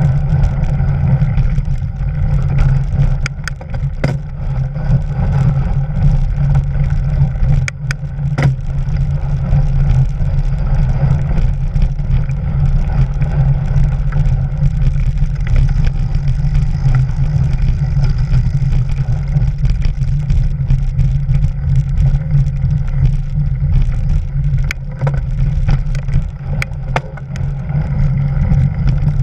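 Steady low rumble of a mountain bike rolling over a snowy, leafy trail, heard from a camera riding on the bike: tyre and wind noise, with a few sharp knocks as the bike hits bumps.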